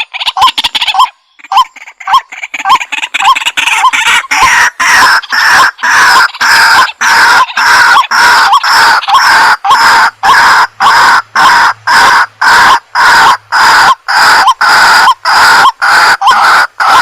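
White-breasted waterhen calling in a long repeated series: short quick notes at first, then from about four seconds in a steady run of longer notes, about two a second.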